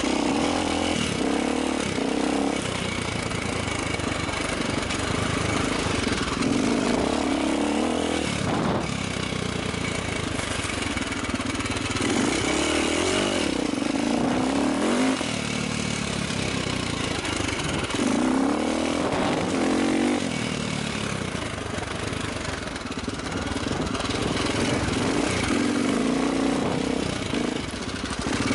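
450 cc enduro dirt bike engine under way, revving up and dropping back again and again as the rider opens and closes the throttle and shifts gear.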